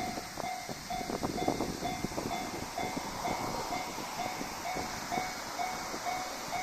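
Level-crossing alarm bell ringing in a steady repeating pattern about twice a second, while a 1500 series diesel railcar passes with a clatter of wheel clicks that thins out toward the end.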